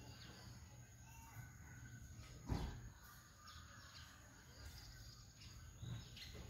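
Faint outdoor ambience with birds chirping here and there over a low background hum, and one sharp knock about two and a half seconds in.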